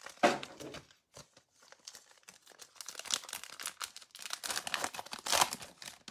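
Foil wrapper of a Panini Illusions basketball card pack crinkling and tearing as it is pulled open by hand: an irregular run of crackles, busiest from about three to five and a half seconds in.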